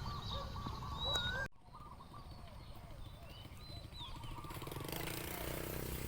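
Faint outdoor ambience with scattered short bird chirps. The sound drops out briefly about a second and a half in, then a low steady hum continues beneath further faint chirps.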